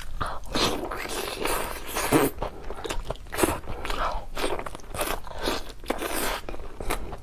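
A person eating close to the microphone: chewing and biting noises in quick, irregular strokes, a few every second.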